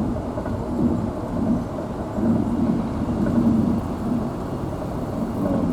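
Steady low rumble of a vehicle's engine and road noise, heard from the front seat inside the moving vehicle, with an engine hum that rises and falls.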